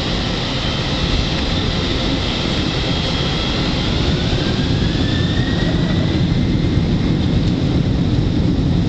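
Boeing 747-400 jet engines spooling up for the takeoff roll, heard inside the cabin: a deep steady rumble with a whine that rises in pitch through the middle, growing slightly louder as the aircraft accelerates.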